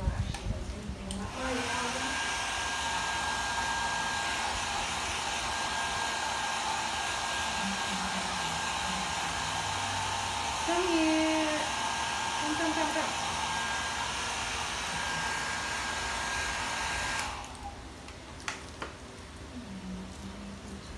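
Handheld hair dryer blowing steadily with a thin high whine in it. It comes on about a second in and is switched off about four seconds before the end.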